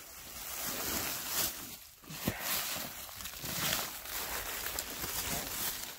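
Footsteps and rustling in dry fallen leaves, with a sharp click a little over two seconds in.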